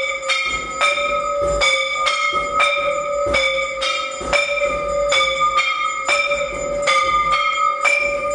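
Temple bell struck over and over in a fast, even rhythm during the aarti, about two to three strokes a second, each stroke ringing on into the next.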